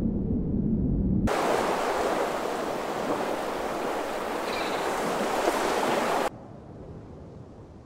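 A steady rush of water, like small waves washing against ice, starts suddenly about a second in and cuts off just as suddenly about six seconds in. Before it there is a low rumble, and after it a quieter hiss.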